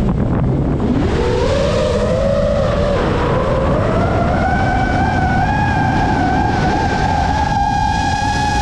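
FPV quadcopter's brushless motors and propellers whining. The pitch is low at the start, rises steeply about a second in, then keeps climbing slowly and holds a high, slightly wavering whine over a steady rush of wind.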